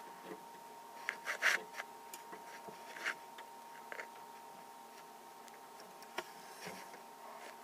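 Camera handling noise: a finger rubbing and tapping on the camera body, with a few soft scrapes and clicks, a small cluster about a second in and single ones around three, four and six seconds.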